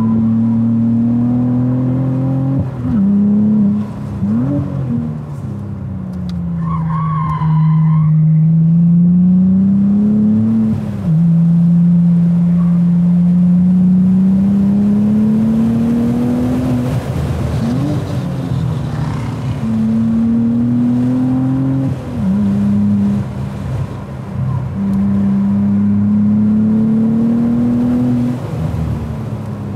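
Cadillac ATS-V's twin-turbo V6 heard from inside the car on track, its pitch climbing and then dropping several times as it accelerates, lifts and shifts gears. A brief tire squeal comes about seven seconds in.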